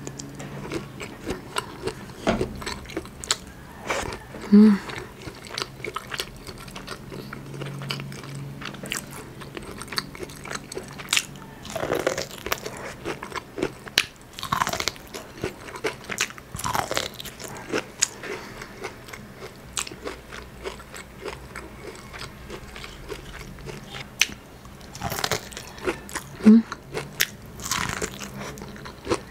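Close-miked mukbang eating: a shrimp being chewed, then kernels bitten off a piece of corn on the cob, with many short sharp crunches and wet mouth smacks. Two louder short sounds stand out, about five seconds in and near the end.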